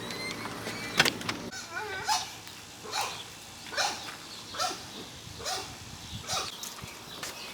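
A cat meowing over and over, short calls falling in pitch, about one every second, the insistent meowing of a cat that wants to be let outside. A sharp click about a second in.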